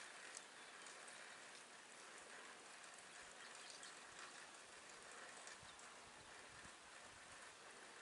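Near silence: a faint, steady outdoor hiss with a few small clicks.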